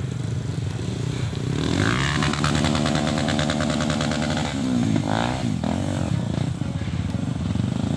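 Trail motorcycle engine running and being revved, its pitch swinging up and down about two seconds in and again about five seconds in.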